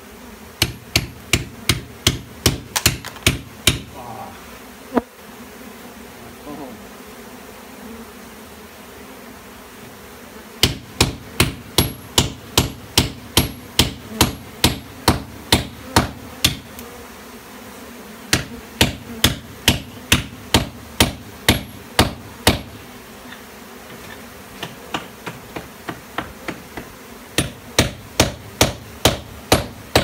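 Hammer striking a steel cold chisel into a stone wall to chisel a stone loose, in runs of rapid blows about three a second with short pauses between. A steady buzz of honey bees goes on under the strikes.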